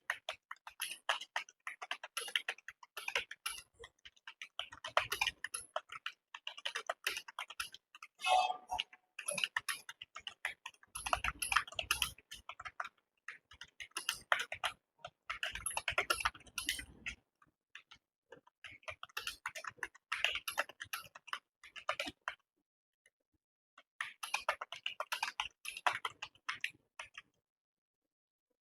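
Typing on a computer keyboard during a typing test: rapid key clicks in runs of a few seconds, broken by short pauses.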